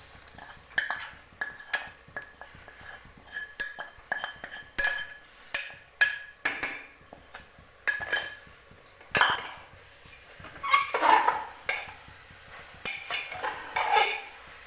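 Metal spoon scraping and clinking around a pan while fried cashews and raisins are stirred into grated-carrot halwa, with a faint sizzle underneath. The scrapes come irregularly, some louder than others.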